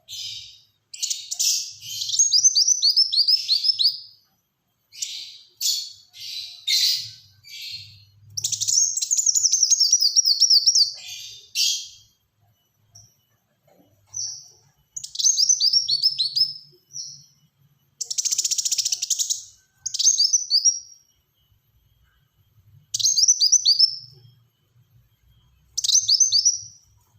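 Kolibri wulung sunbird singing in rapid, tightly packed bursts. The phrases are quick runs of high, short, falling notes, with pauses between them and a harsher rattling burst about two-thirds of the way in.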